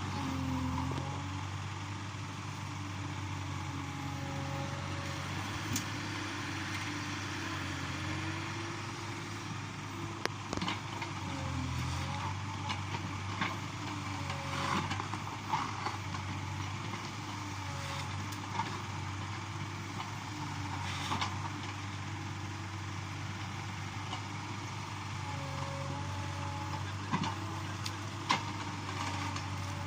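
Backhoe loader's diesel engine running at a steady, low speed, with scattered sharp clanks and knocks.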